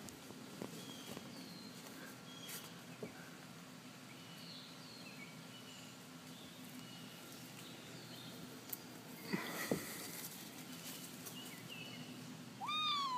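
Quiet outdoor background with scattered short bird chirps, a few faint knocks and a brief rustle about nine seconds in; near the end a cat gives one loud meow that falls in pitch.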